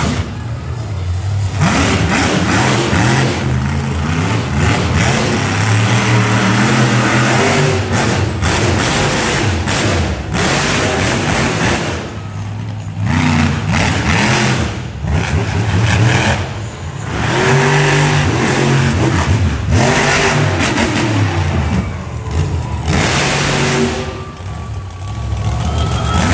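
Monster truck engines revving hard and easing off again and again, the pitch climbing and falling, with a loud rushing roar of exhaust over it.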